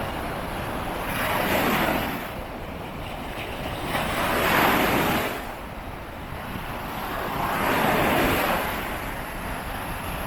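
Ocean waves breaking on the shore: three surges of surf a few seconds apart, each swelling and falling away.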